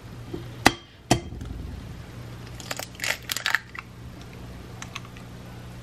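A hen's egg knocked against the rim of a glass mixing bowl: two sharp taps about half a second apart, then the shell crackling as it is pried open with one hand about three seconds in. A steady low hum runs underneath.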